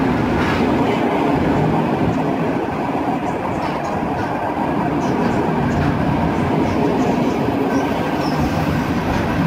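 Type 111A second-class passenger coaches rolling past along the platform: a steady rumble of wheels on rail with a few faint clicks.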